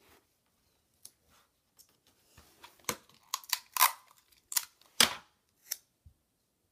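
Paper and clear sticky tape being handled and pressed down by hand: a run of short crackles and rustles, the loudest about four and five seconds in.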